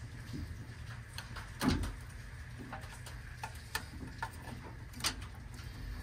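Scattered light clicks and taps of a screwdriver and wires being handled at a furnace control board, as the low-voltage wires to the outdoor unit are disconnected. The loudest knock comes a little under two seconds in. A steady low hum runs underneath.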